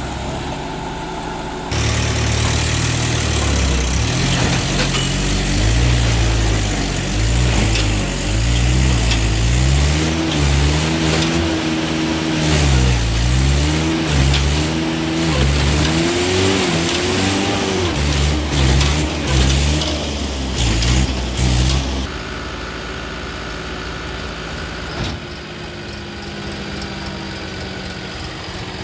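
Tractor diesel engines under heavy load, revving up and down over and over as they pull a bogged trolley out. The sound jumps in suddenly a couple of seconds in, and changes abruptly to steadier, quieter engine running about three-quarters of the way through.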